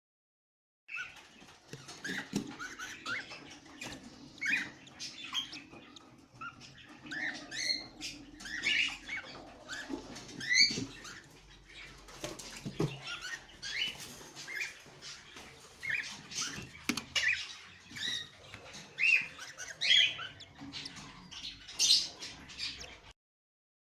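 Cage birds, cockatiels among them, chirping: many short rising chirps and calls with scattered sharp clicks. They start about a second in and stop suddenly near the end.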